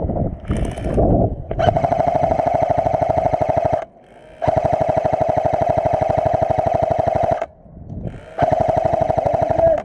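Airsoft electric gun (AEG) firing on full auto: three long bursts of rapid, even shots over a steady motor whine, about two, three and one and a half seconds long, with short pauses between them.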